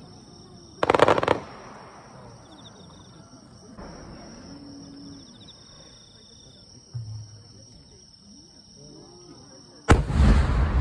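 Aerial firework shells bursting: a short loud burst about a second in, then a sudden deep boom near the end that rumbles on.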